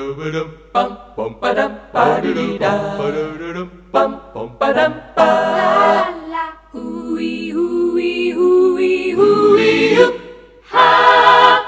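Unaccompanied a cappella singing: short vocal phrases with layered harmonies and no beat, the last phrase cutting off sharply at the end.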